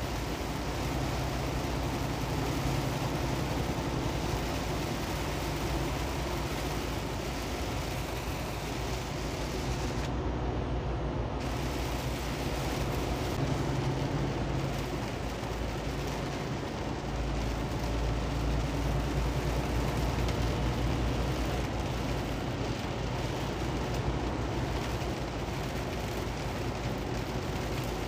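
Steady road noise inside a semi truck's cab on a rain-soaked highway: a low engine drone under the hiss of tyres running through standing water and rain.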